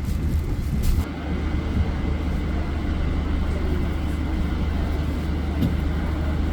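Running noise of a moving passenger train: a steady low rumble of the carriage on the rails. A hiss of rushing air drops away sharply about a second in.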